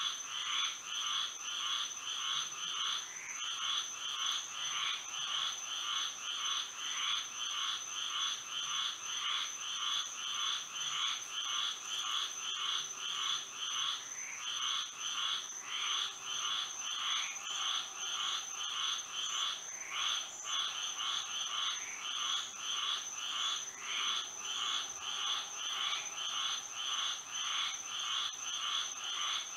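Frog chorus: many frogs calling in a fast, even stream of short repeated calls, about three a second, over a steady high-pitched ring.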